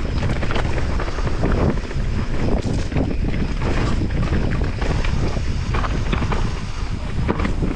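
Mountain bike riding fast downhill on a dirt trail: a steady low rumble of wind buffeting the camera microphone and tyres on the ground, with frequent quick rattles and knocks from the bike over roots and ruts.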